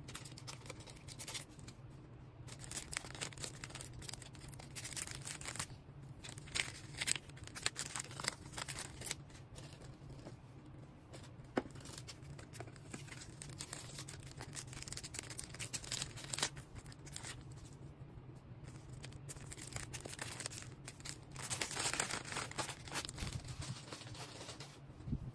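Packaging being handled by hand: irregular crinkling, rustling and tearing, with a denser run of tearing near the end, over a steady low hum.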